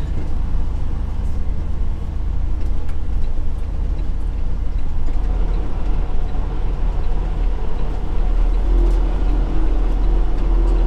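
Semi-truck's diesel engine running with road rumble, heard inside the cab while driving slowly: a steady low rumble, with a higher steady hum coming in near the end.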